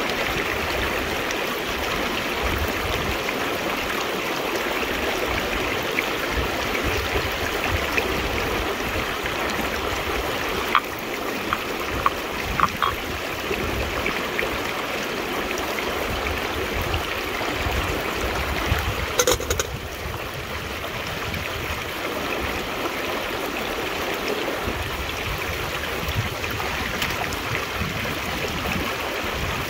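River water flowing steadily. A few short clicks come about eleven to thirteen seconds in, and a louder knock comes around nineteen seconds in.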